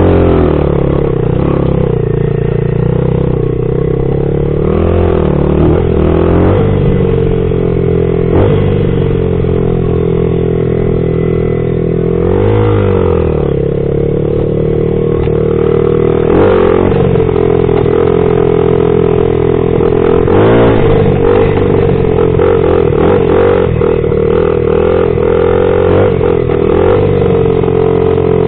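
2000 Honda XR80R's small single-cylinder four-stroke engine running hard as the bike is ridden, its pitch rising and falling every few seconds as the throttle is opened and closed.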